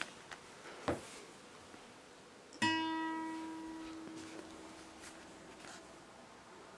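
A single string of a nylon-string classical guitar sounds once, suddenly, and its one note rings and dies away over about two seconds. A short knock comes about a second before it.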